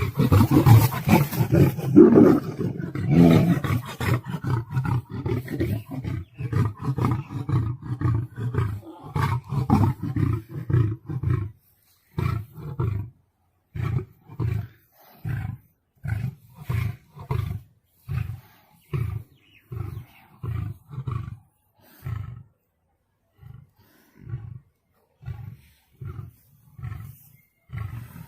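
Big cats roaring and snarling loudly in a dense tangle for the first few seconds. Then comes a long run of short, deep grunting roars about one a second, growing fainter toward the end.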